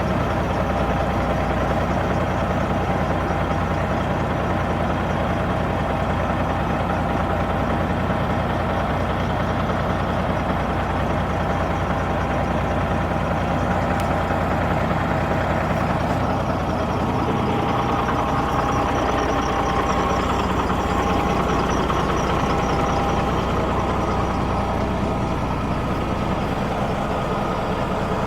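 Kenworth W900's Caterpillar diesel engine idling steadily, exhaust through its tall chrome stacks.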